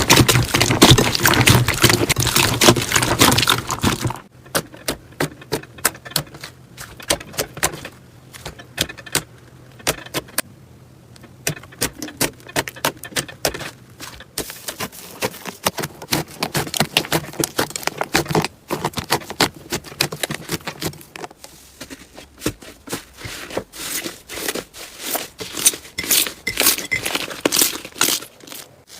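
Slime being squeezed and pressed by hand, making rapid clicks and pops: dense for about the first four seconds, sparse through the middle, and thickening again near the end.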